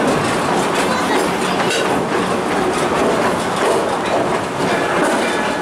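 The Cedar Point and Lake Erie Railroad's narrow-gauge train running along the track, heard from on board: a steady rumble and rattle of the moving cars, with irregular clacks from the wheels.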